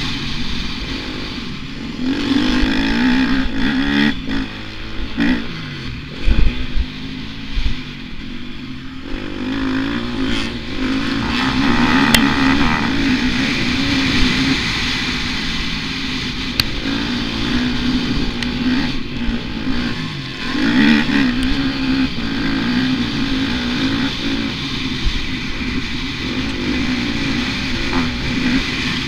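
Motocross bike engine heard from the rider's helmet camera, revving up and dropping back again and again as the bike is ridden hard. There are a few loud thumps about six to seven seconds in.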